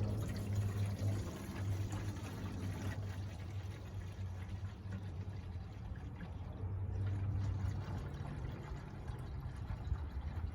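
Washer fluid poured from a jug into a windshield washer reservoir, a steady pouring and filling sound, with a low hum coming and going underneath.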